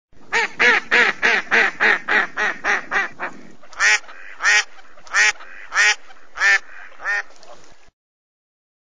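Duck quacking: a fast run of about ten quacks that fade toward the end, then five louder quacks about half a second apart and one more, after which it stops.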